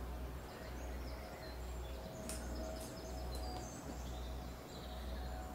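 Small birds chirping, short high calls scattered throughout, over a steady low rumble.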